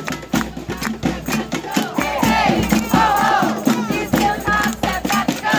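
Snare drums beaten with sticks in a quick, steady rhythm, about five hits a second. A crowd's voices shout and chant over the drumming from about two seconds in.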